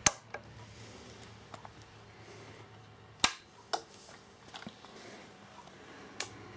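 Several sharp clicks of controls being operated on a Philips EE2003 electronics kit radio and its bench power supply: a loud one at the start, two about half a second apart a little over three seconds in, and another near the end, over a faint low hum.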